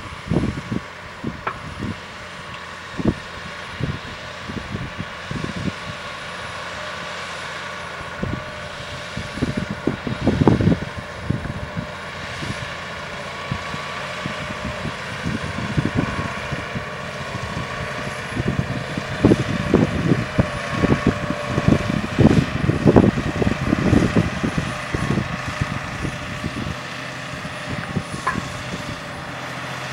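Case IH Puma 215 tractor's six-cylinder diesel engine running steadily under load as it pulls a land leveller pushing soil. Irregular low thumps and buffeting come over it, heaviest about a third of the way in and again through the later middle.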